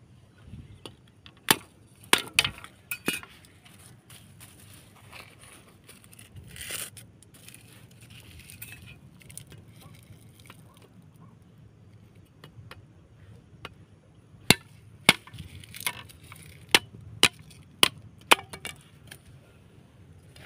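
Machete blade chopping into a fresh green bamboo branch on a wooden block: sharp knocks, a handful about two seconds in and a run of about eight near the end, with a longer scraping stretch in between.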